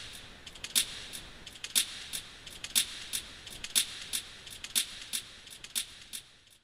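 Clock-like ticking in the performance's sound score: a sharp, bright tick about once a second with several fainter ticks between, fading out just before the end.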